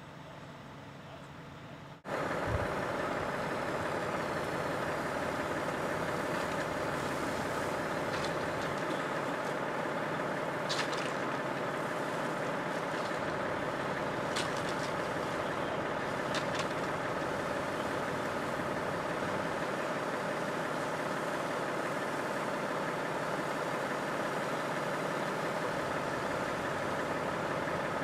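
Heavy truck engine idling steadily, a constant drone that jumps louder about two seconds in, with a few faint clicks over it.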